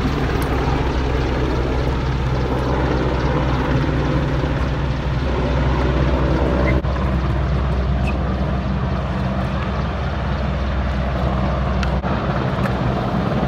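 Large helicopter flying low as it comes in to land on a rooftop helipad, its rotors and engines making a loud, steady low drone.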